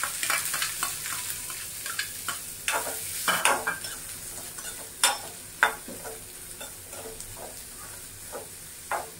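Chopped onions sizzling in hot oil in a metal kadai, loud at first and settling lower, while a metal spoon stirs them, clinking and scraping against the pan several times.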